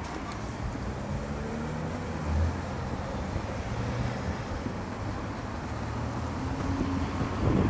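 Road traffic: car engines running and driving past at a town junction, a steady low rumble with a brief swell about two seconds in, growing louder near the end.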